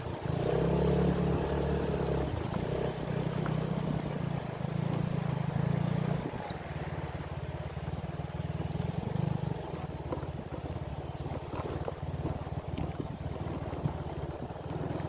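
A small engine running, its note stepping and shifting for about the first six seconds, then settling to a steadier, slightly quieter run.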